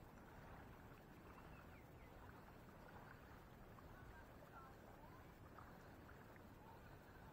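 Near silence: faint steady outdoor background hiss with a few faint, short chirps.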